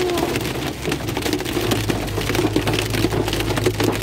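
Rain and hail hitting the car's roof and windshield in dense, rapid ticks, heard from inside the cabin over the steady low hum of the car driving on a wet road.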